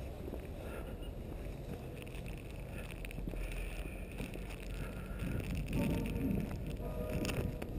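Footsteps crunching through packed snow, with a low wind rumble on the microphone. The steps grow louder in the last few seconds.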